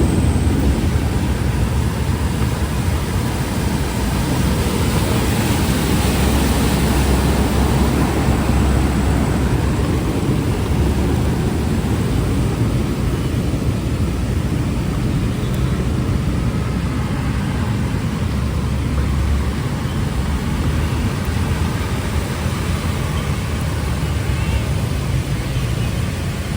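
Heavy rain and street traffic: a steady, dense rush of noise with a deep rumble underneath.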